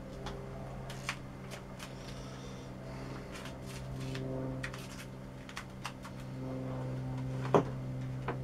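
Handling noise from a coil of clear plastic air hose being unwound: scattered clicks and rustles, with one sharp knock about three-quarters of the way through. A faint steady hum runs underneath.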